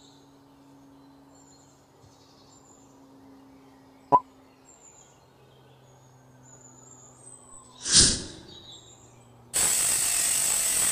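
A small rotary tool's cutting disc grinding into a metal rod, starting about a second before the end and running loud and steady. Before it, faint birds chirp over a low hum, with a sharp click about four seconds in and a short burst near eight seconds.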